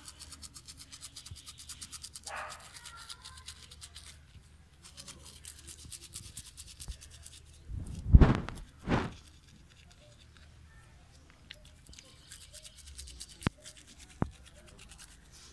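Toothbrush bristles scrubbing a dog's teeth in quick, rapid back-and-forth strokes, stopping and restarting. About eight seconds in, two loud short rushes of noise about a second apart.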